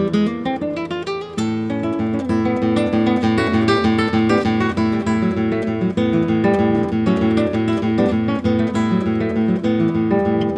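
Background music on acoustic guitar, plucked and strummed, opening with a rising run of notes in about the first second and a half.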